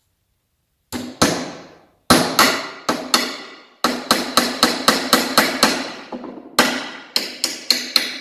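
Hammer driving a nail into the end of a wooden 2x4 rafter. It comes in runs of quick blows starting about a second in, several a second at the fastest, and each blow rings briefly.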